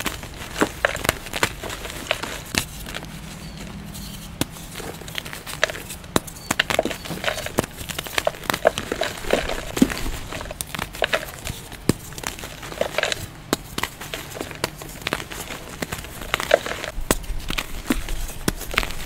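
Fresh gym chalk blocks crushed and crumbled by hand: dense, irregular soft crunches and powdery crackles as the blocks break apart, a few sharper crunches each second.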